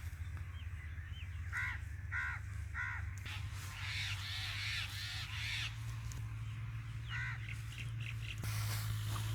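Bird calls outdoors: three short harsh calls about half a second apart, then another one later. A low steady hum runs underneath, and a patch of hissing noise comes in the middle.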